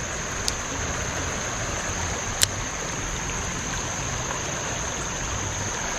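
Creek water flowing steadily, under a steady high-pitched whine. Two sharp clicks come about half a second and two and a half seconds in, the second louder.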